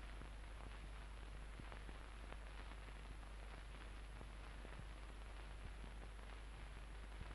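Faint steady hiss and low hum with scattered soft crackles: the background noise of an old film soundtrack, with no distinct sound effect.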